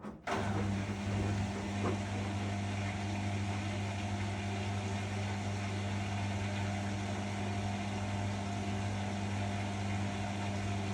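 Arçelik washing machine on its spin cycle: the drum and motor start abruptly just after the beginning, then run at a steady speed with an even hum and whirr.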